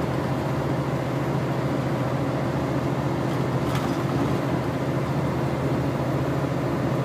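Steady drone inside the cab of a Volvo VNL 670 semi truck climbing a snowy highway: the diesel engine running under load with constant road noise.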